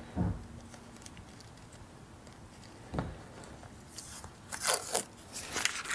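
Masking tape being picked at with a small blade and peeled off the painted edge of a steam locomotive cylinder's bore: a couple of soft knocks, then short crinkly tearing sounds from about four seconds in.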